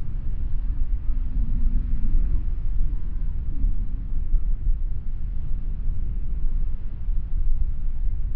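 Wind blowing across the microphone: a steady low rumble that flickers with the gusts.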